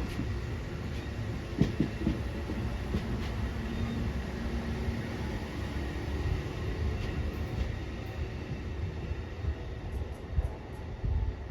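Train running along the track, a steady low rumble with scattered clicks and knocks from the wheels.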